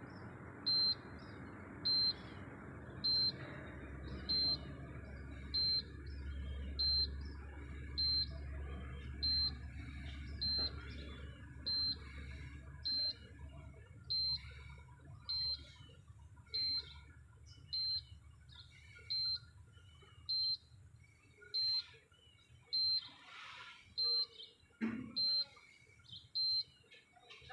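A short, high-pitched electronic beep repeating steadily about every 1.2 seconds. A low rumble runs underneath for about ten seconds in the first half, then fades.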